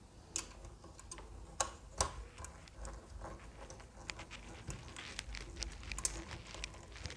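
Small screw being driven by hand with a screwdriver into a scale model's plastic parts: a run of faint, irregular clicks and ticks.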